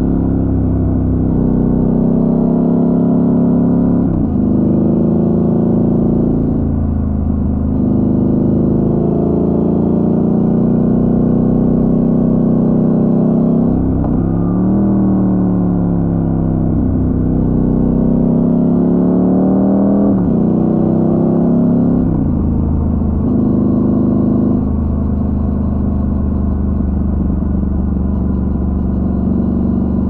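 Motorcycle engine under way on a twisty road, its pitch dropping sharply and climbing again every few seconds as the rider shifts gears and rolls on and off the throttle through the bends.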